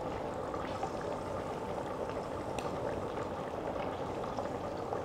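Oil sizzling and bubbling steadily around shrimp-stuffed sandwich-bread rolls frying in a pan, with a few faint crackles.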